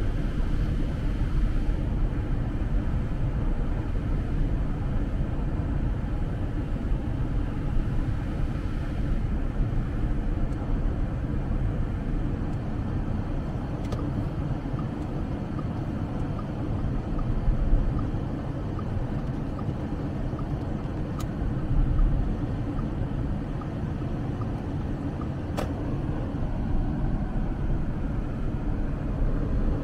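Steady low rumble of a car driving at highway speed, heard inside the cabin, with a few faint clicks now and then.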